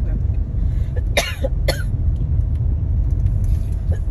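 Steady low road rumble inside a moving car's cabin, with a person coughing twice, sharply, about a second in.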